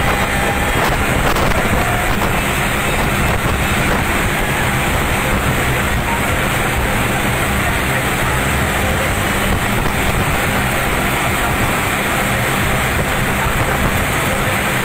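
Diesel tractor engines running hard at racing speed, a steady unbroken drone, with heavy wind noise on the microphone.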